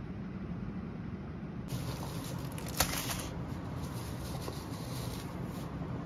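Indoor room tone with a steady low hum, broken by a single sharp tap about three seconds in and a few faint ticks.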